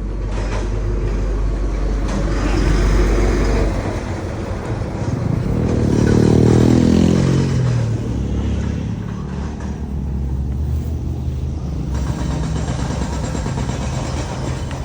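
Motor vehicle engine running steadily. About six seconds in, an engine sound swells to its loudest and falls in pitch over a couple of seconds, as when a vehicle passes or slows.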